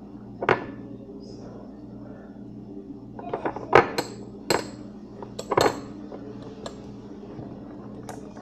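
A series of short sharp clicks and clinks, about a dozen, the loudest half a second in and in a cluster between three and six seconds in, over a steady low hum.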